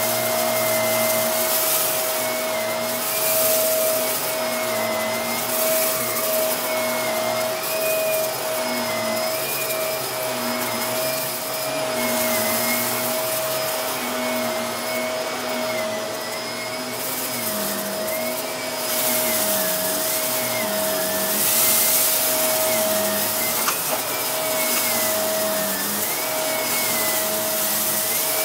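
Shark Lift-Away upright vacuum cleaner running on shag carpet, with a steady motor whine and tones that waver up and down as it is pushed back and forth. Spells of brighter crackling hiss come and go as rice is sucked up, with a single small click near the end.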